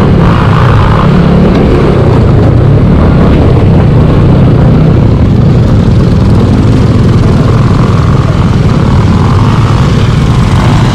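Motorcycle engine running steadily at low speed, heard close up from the bike itself as it rides slowly over a loose rocky track.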